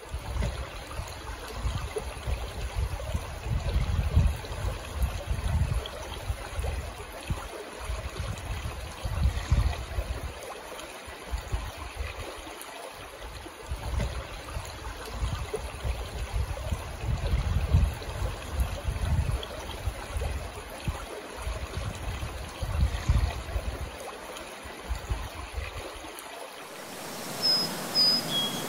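A small forest creek babbling over stones, with irregular low rumbles coming and going underneath. Near the end it changes to an even hiss with a few brief high chirps.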